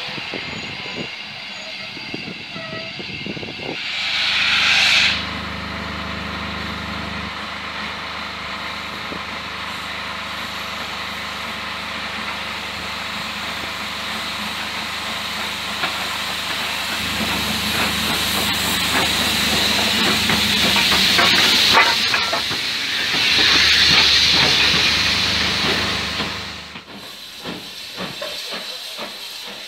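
Steam locomotive at a station platform, hissing steam steadily. A short loud burst of steam comes about four seconds in. After the middle a louder stretch of hissing with exhaust beats builds up, then eases off near the end.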